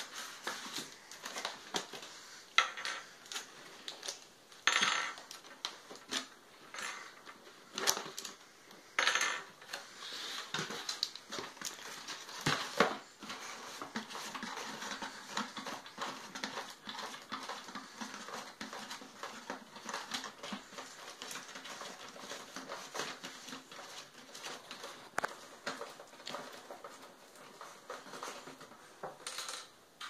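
Cardboard box and plastic packaging being handled: irregular rustling, crinkling and light knocks, with a few louder rustles in the first half.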